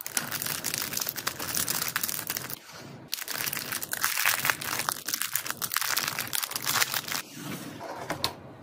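Packaging crinkling and rustling as it is handled, with many small crackles and clicks, pausing briefly about three seconds in.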